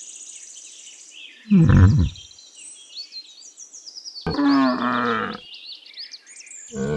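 Yak calling: a low call about a second and a half in, another near five seconds in, and a longer one starting near the end, with birds chirping faintly in the background.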